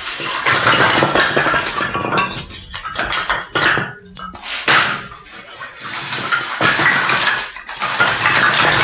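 Wood being cut into small firewood pieces: rasping, crackling strokes that come in bursts with short pauses between.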